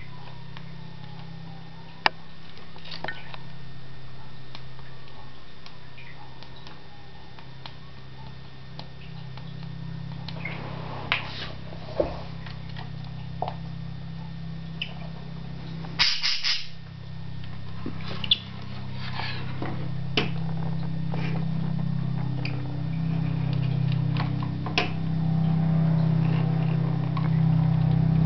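Scattered sharp taps and knocks of small objects on a wooden shelf as a budgerigar pecks and shoves at a small clock and a hand moves it about, over a steady low hum; the loudest knock comes about midway.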